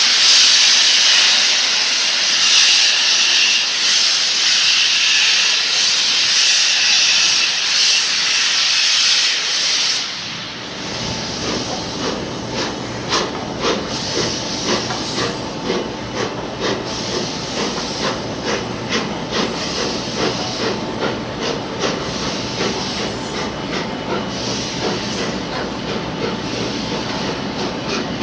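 LNER A1 Pacific steam locomotive Tornado moving off, its cylinder drain cocks blowing steam with a loud, steady hiss. About ten seconds in the hiss drops away, leaving a lower rumble with uneven beats and many short metallic clanks as the engine and its train pull slowly away.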